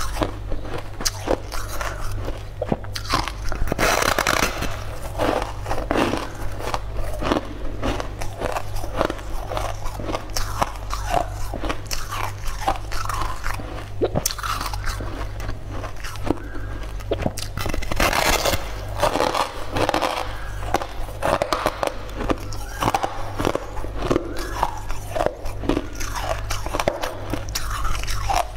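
Repeated crisp crunches of biting into and chewing a large, hard, purple cookie slab with a sugary crust, irregular and close together, over a steady low hum.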